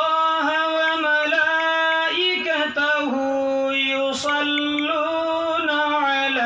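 A man chanting a Quran verse in slow melodic recitation into a microphone, holding each note long and sliding between pitches.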